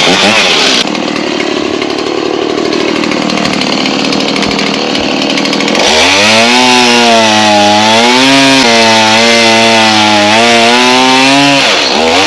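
Gas chainsaw running at full throttle while cutting scrap lumber down to size for uprights. About halfway through, its rough note gives way to a clear, slightly wavering engine pitch, and it stops shortly before the end.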